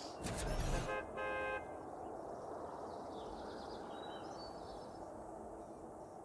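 A short noisy rush, then about a second in a single steady horn-like toot lasting about half a second, followed by faint background noise.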